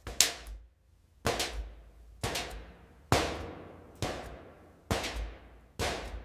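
Footsteps on a metal surface: seven slow, even steps about one a second, each a sharp impact followed by a short metallic ring that fades.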